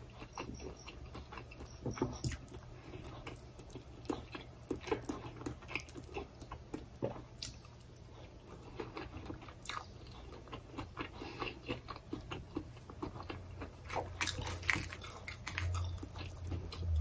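A person chewing and eating with their hands: irregular soft wet smacks and small mouth clicks, coming thicker near the end.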